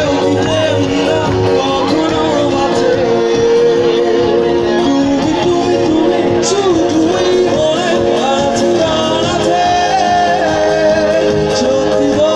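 Live band playing a Bengali stage song: a singer's voice over guitar and keyboard, continuous and loud.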